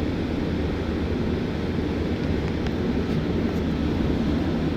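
Steady low background rumble that does not change, with no alarm tone in it.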